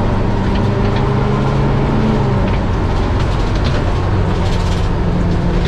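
Fire truck engine running hard under load as the truck launches off-road and pulls forward not very fast. Its note rises a little, then drops about two and a half seconds in.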